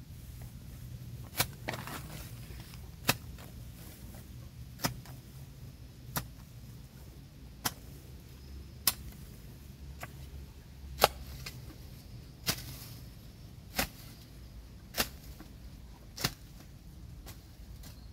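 Metal hoe blade chopping into soft earth and dragging it, a sharp strike about every second and a half, as a small grave is filled in. A steady low rumble runs underneath.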